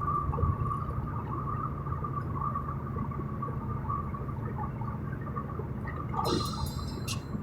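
Steady low road and engine rumble inside a moving car at highway speed, with a steady high tone over it; about six seconds in, a brief falling sound and a few clicks.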